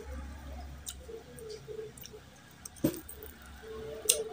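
Close chewing and wet mouth sounds of a man eating mutton curry and rice by hand, with squelches of the food and a few sharp clicks, the loudest about three seconds in and another near the end.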